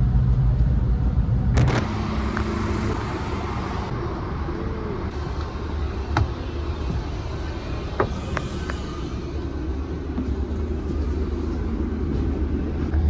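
Low rumble inside a moving train that cuts off abruptly to the steadier, quieter hum inside a coach bus with its engine running. Two sharp clicks break the hum partway through.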